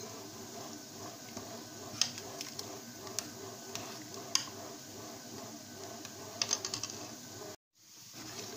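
Scattered light clicks and taps of kitchen utensils against dishes over a faint steady background, with a quick flurry of clicks about six and a half seconds in. The sound cuts out completely for a moment near the end.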